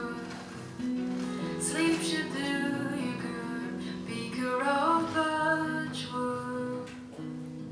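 Background music: a song with a singing voice over guitar.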